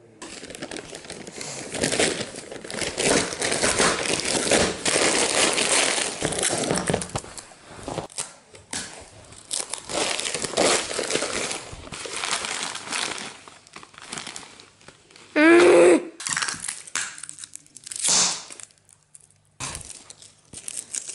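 Christmas wrapping paper crinkling and crumpling in irregular bursts as it is scrunched and folded around a present. About fifteen seconds in comes a brief loud sound with a wavering pitch, and a louder rustle near the end.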